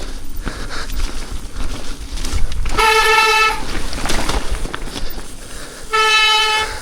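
A van's horn sounding twice, two short steady toots about three seconds apart, over low wind rumble on the microphone.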